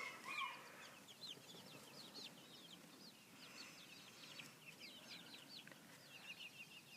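Chickens chirping faintly: many short, falling high peeps, a few each second.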